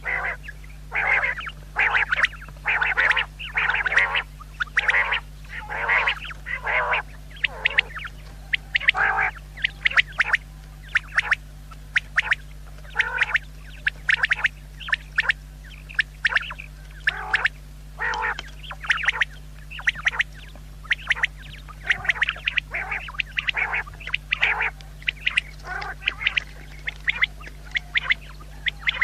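Common quail calling over and over in short harsh notes, about one or two a second, with sharp clicks between them. A steady low electrical hum runs underneath.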